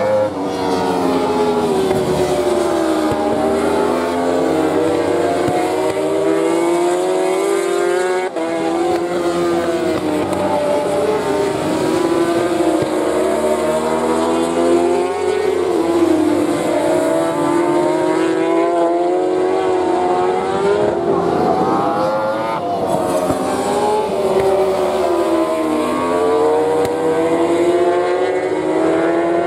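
A pack of 1000 cc inline-four superbikes racing through a corner, several engine notes overlapping and rising and falling in pitch as the riders work the throttle.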